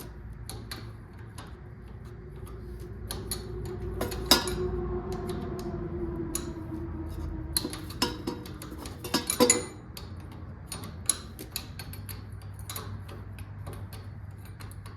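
Metal hand tools clicking and clinking against steel line fittings as they are worked loose, with the loudest knocks about four seconds and nine and a half seconds in. A steady low tone runs under the middle few seconds.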